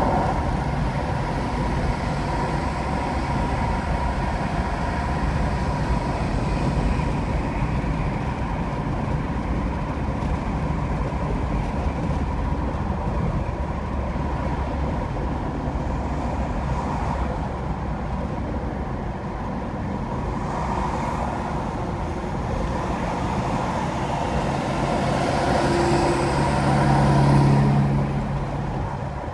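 Car driving on an interstate highway: steady tyre and engine noise that grows louder for a few seconds near the end.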